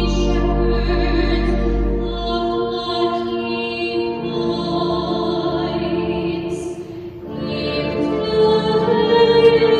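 Church music: a singer with steady, held instrumental accompaniment, the sung psalm between the Mass readings. The singing dips briefly about seven seconds in before going on.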